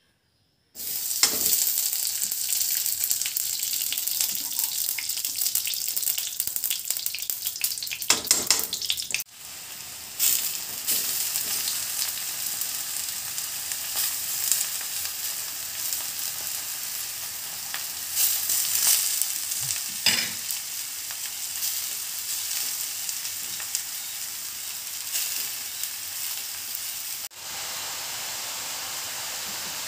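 Butter and then grated bottle gourd frying in a hot wok: a steady high sizzle with stirring now and then. It breaks off and changes suddenly twice.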